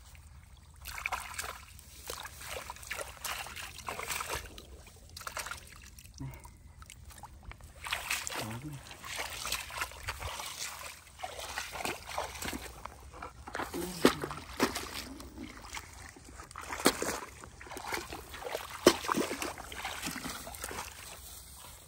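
Irregular splashing and sloshing in shallow muddy water, with a few sharper splashes.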